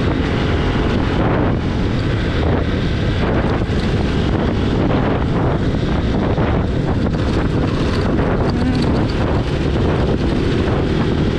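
Heavy wind buffeting on the microphone of a moving motorcycle, a loud, steady rush with the road and engine noise underneath.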